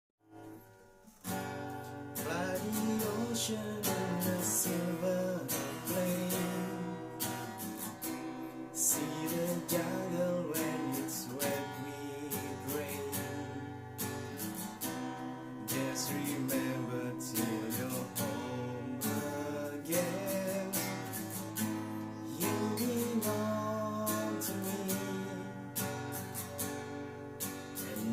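Acoustic guitar strummed with a man singing along, starting about a second in, picked up by a smartphone's built-in microphone rather than a clip-on lavalier.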